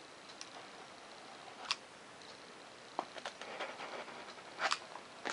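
Scattered light clicks and rustles of foam board being handled and pressed together, the loudest near the end.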